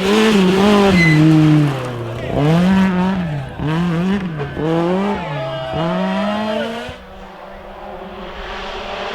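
Rally car engine revving hard, its pitch rising and falling again and again as the driver works the throttle and gears. About seven seconds in it cuts off sharply to a fainter engine note that slowly rises.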